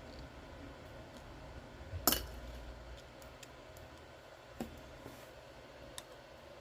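Small sharp clicks of lead shot pellets and a 3D-printed plastic shot capsule being handled as pellets are added one at a time: three clicks, the loudest about two seconds in.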